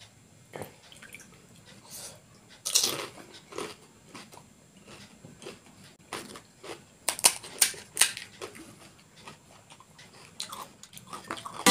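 Crisp panipuri (golgappa) shells cracking and being chewed close to the microphone, in scattered sharp crunches with quiet gaps between.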